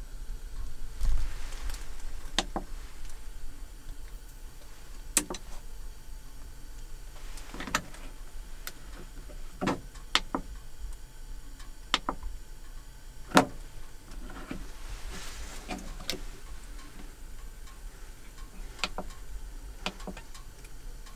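Buttons on a Jackery Explorer 2000 Pro portable power station clicking as a finger presses them: about ten sharp clicks spaced a second or two apart, with soft rustling of handling between them.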